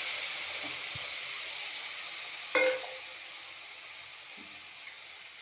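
Hot oil with fried ginger, green chillies and curry leaves sizzling as jaggery syrup is poured into the pan, the sizzle dying down steadily as the syrup cools the oil. A single metal clink rings out about two and a half seconds in.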